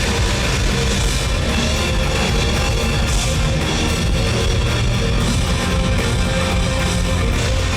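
Live rock band playing an instrumental passage with distorted electric guitar and drum kit, loud and steady, with no vocals.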